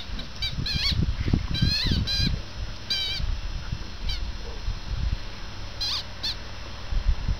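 Squeaky rubber chicken toy being squeezed and tossed by a dog, giving short, high, wavering squeaks in small bunches, about a second in, around two and three seconds, and twice near six seconds.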